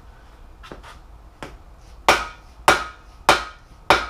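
Hammer blows on the end of a long driver rod, driving a balance shaft bearing into its bore in a Jeep 3.7L V6 engine block. Two light taps, then four hard, ringing strikes about two-thirds of a second apart.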